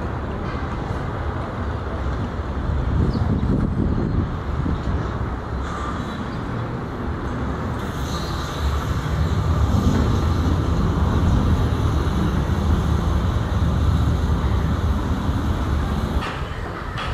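Air India Airbus A320's twin jet engines at takeoff power as it rolls, lifts off and climbs away: a steady deep rumble with a hiss over it, growing louder and fuller about halfway through.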